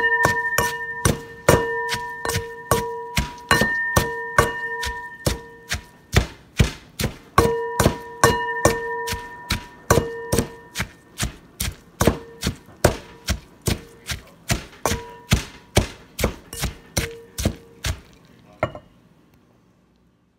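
Knife chopping food on a cutting board, sharp regular strokes about two to three a second, fading out near the end.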